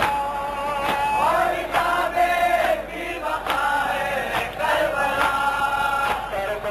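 A crowd of men chanting together in long, held, gliding notes, with a few sharp slaps or claps breaking through now and then.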